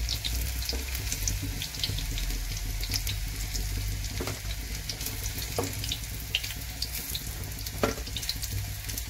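Besan and soya fritters deep-frying in hot oil in a steel kadhai: a steady hiss with fine crackling. A perforated metal slotted spoon clinks against the pan a few times as the fritters are lifted out.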